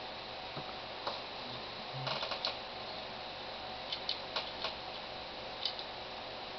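Small metal clicks and taps of 1911 pistol parts as the grip safety is fitted and lined up in the frame: a few scattered clicks, a quick run of them about two seconds in, and another group around four to five seconds in, over a faint steady hiss.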